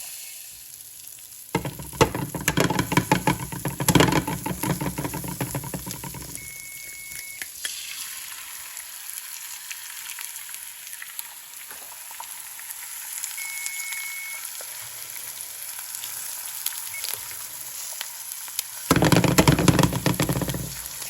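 Eggs and asparagus sizzling in a frying pan, a steady hiss with two louder crackling spells, one about two seconds in lasting several seconds and another near the end.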